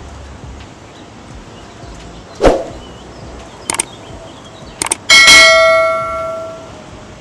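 A couple of short clicks, then a single bright bell-like ding that rings out and fades over about a second and a half. A dull thud comes a few seconds before it.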